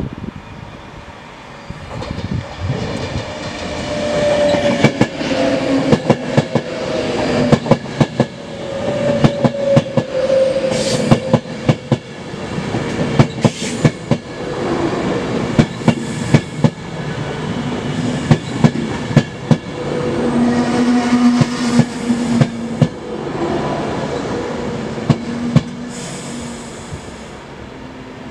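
Class 390 Pendolino electric train running through the platform, its wheels clacking sharply and irregularly over rail joints. A whine falls in pitch during the first half.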